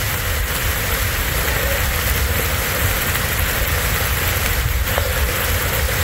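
Steady rush of a tall waterfall in heavy monsoon flow, water falling from about 70 metres.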